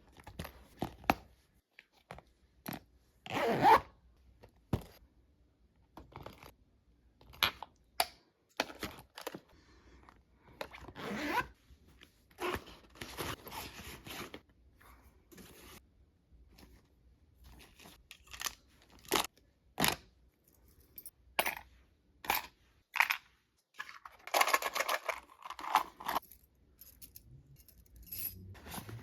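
Irregular scraping, tearing and clicking of something being worked by hand, with heavy breathing from a woman 37 weeks pregnant, labouring at the effort.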